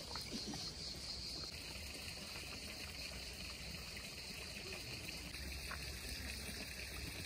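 Steady running water from a spring, with insects chirring for the first second or so.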